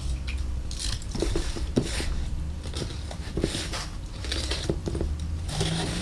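Cardboard helmet box and its packaging being handled and opened: irregular scraping, rustling and crinkling with small knocks and clicks.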